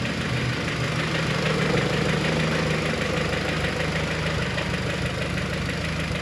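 Honda G23 (H22 head on F23 block) four-cylinder engine idling with a fast, steady ticking. This is the ticking the owner is chasing, and new lost motion actuators and a tightened timing belt have not cured it.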